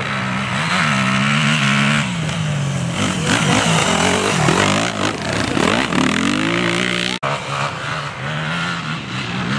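Yamaha enduro motorcycle engine revving up and down under load, loudest as the bike passes close in the middle. It cuts off abruptly a little after seven seconds, then the engine is heard again, further off.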